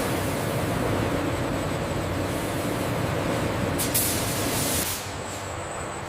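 Steady machinery hum with a brief burst of hissing about four seconds in, after which the hum thins out.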